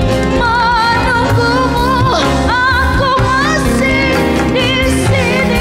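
A woman singing a slow dangdut ballad with strong vibrato on her held notes, backed by a live band with keyboard and bass guitar.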